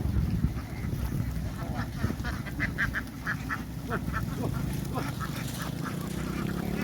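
A flock of domestic ducks quacking, with a quick run of short calls about two to four seconds in, over a steady low hum.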